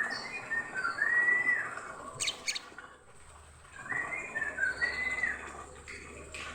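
Oriental magpie-robin (kacer) singing in full breeding condition: two phrases of clear whistled notes and slurs about two seconds apart, with a few sharp clicks in the gap between them.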